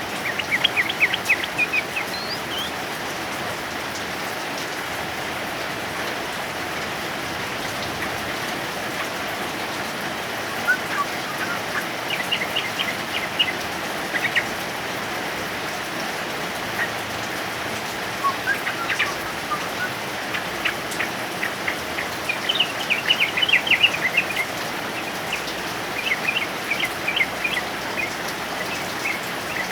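Heavy rain falling steadily, with a male yellow-vented bulbul (trucukan) singing quick, rapid chattering bursts of high notes several times.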